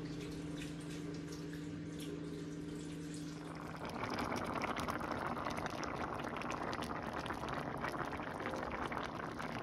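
Chicken, sausage and tomato sauce simmering in a pan, dense bubbling and popping that sets in about four seconds in; before that only a steady low hum.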